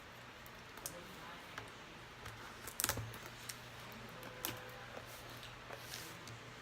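A cardboard trading-card hobby box being opened by hand: scattered light clicks and crinkles, the loudest a sharp snap about three seconds in, over a low steady hum.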